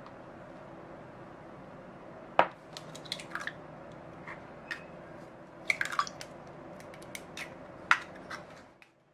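Eggs cracked into a glass mixing bowl: sharp taps of shell against the bowl, the loudest about two and a half seconds in and another near the end, with clusters of smaller cracking clicks and wet splats between them, over a steady low hum.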